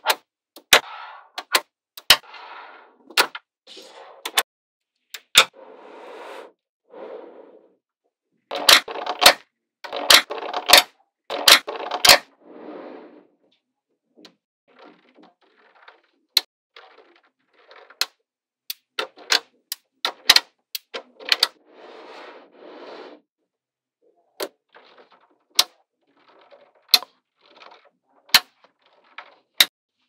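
Small magnetic balls clicking sharply as strips of them are snapped onto a flat plate of magnetic balls, at irregular intervals. Between the clicks come short spells of rattling as the rows of balls shift and settle against each other.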